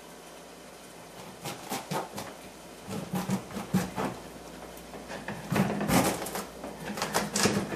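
A knife being worked down through a raw spaghetti squash on a cutting board: irregular cracks, scrapes and knocks of the blade and squash against the board, growing louder and busier after about five seconds.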